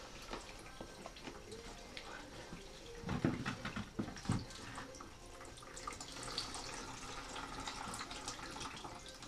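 Melted beeswax and water trickling and dripping through a filter cloth into a plastic bucket as a clamped wooden frame is squeezed and tilted, with a couple of low knocks of the wood about three and four seconds in.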